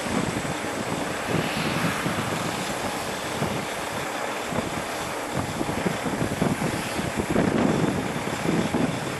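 Steady jet-engine noise from a Boeing 777 freighter's GE90 engines as the aircraft rolls past, with gusts of wind buffeting the microphone.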